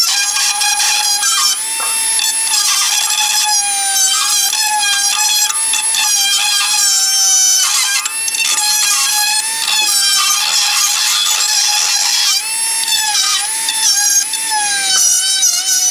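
Cordless power tool running without a break, a steady high whine whose pitch wavers as the tool is loaded, as it cleans old sealant off engine parts.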